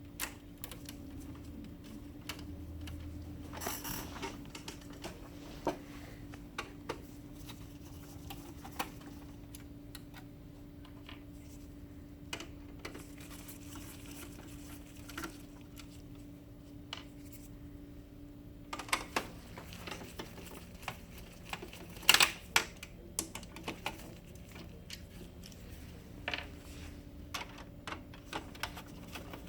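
Scattered sharp plastic clicks and taps as an HP LaserJet printer's covers and parts are handled and unclipped during disassembly, busiest and loudest a little past the middle, over a steady low hum.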